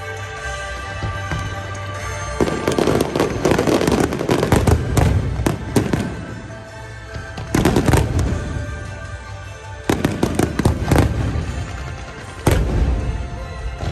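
Aerial firework shells bursting in dense volleys of bangs and crackles, coming in waves a few seconds apart, over music playing steadily underneath.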